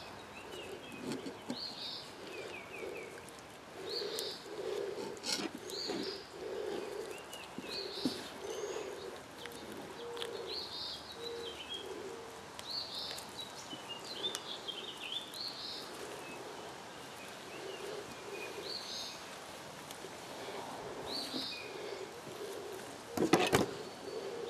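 Birds singing outdoors: short high calls repeated every second or so, with a lower repeated call under them for a stretch in the first half. A sharp knock near the end is the loudest sound.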